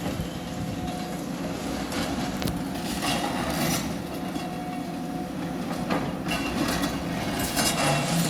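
Demolition excavator's diesel engine running steadily while its claw tears into a building, with several crunches and clatters of breaking rubble, the loudest about six seconds in and near the end.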